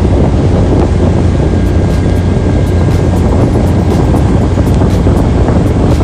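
A ferry's engine running with a steady low hum, mixed with wind buffeting the microphone and the rush of water.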